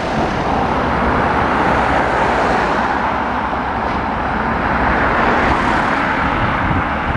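Road traffic passing close by: a van and then cars go past, their tyres and engines making a steady rushing noise that swells a little as each one passes.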